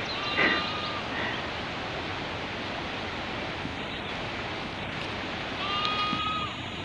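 Steady hiss of steam from a steam locomotive standing at the station platform. Two short, high, level-pitched calls come through it, one at the start and one near the end.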